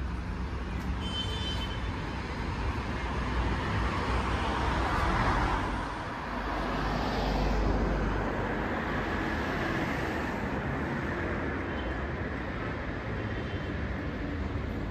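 City street traffic: a steady wash of car noise, with vehicles passing close by about four to five seconds in and again around eight seconds.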